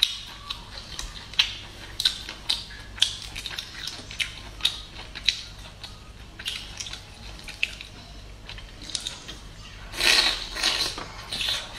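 Crackling and snapping of prawn shells being peeled apart by hand, a run of sharp separate clicks. About ten seconds in comes a louder, denser stretch as she bites into the peeled garlic prawn and chews.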